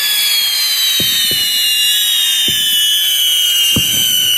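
Whistling firework shrieking one long, loud whistle whose pitch slowly falls, with a few faint pops underneath.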